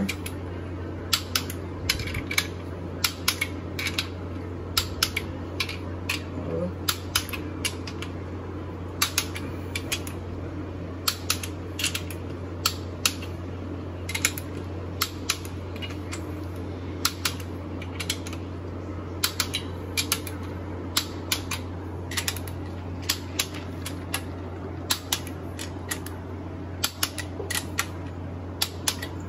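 Ratcheting torque wrench clicking in short, irregular runs as the crankshaft main cap bolts of an LS7 block are torqued in another pass, over a steady low hum.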